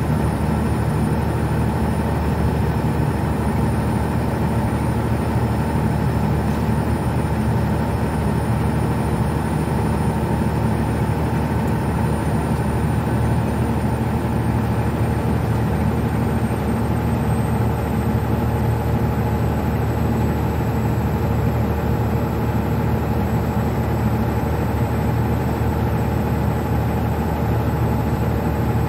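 Old International semi truck's diesel engine and road noise heard inside the cab: a steady, even drone while cruising.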